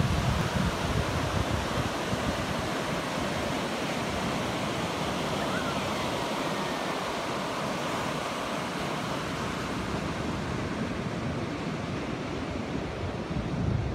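Ocean surf breaking and washing up a sandy beach: a steady rushing hiss, with wind buffeting the microphone at the start.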